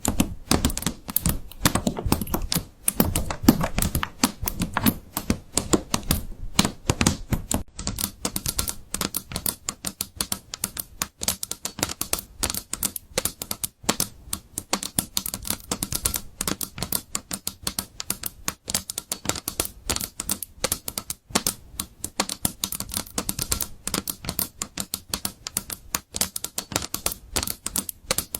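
Fast, continuous typing on a computer keyboard, dense key clicks throughout. The keystrokes sound deeper for the first several seconds, and crisper and brighter from about eight seconds in.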